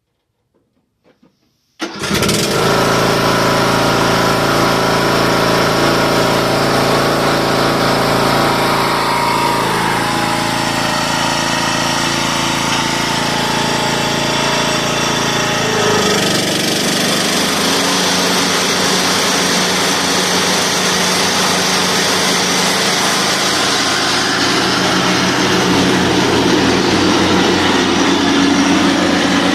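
Lawn mower engine cutting in suddenly about two seconds in and then running loudly and steadily; its pitch shifts about halfway through.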